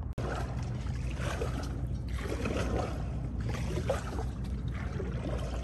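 Water trickling and splashing around a sit-on-top fishing kayak as it moves across calm water, over a steady low rumble.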